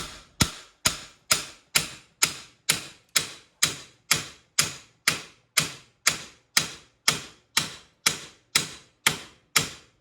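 An even series of sharp metallic-sounding clicks, about two a second, each with a short fading ring.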